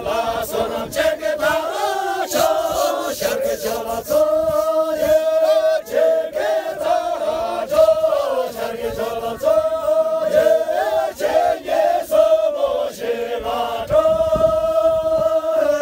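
A group of men and women singing a song together in unison, with long held notes.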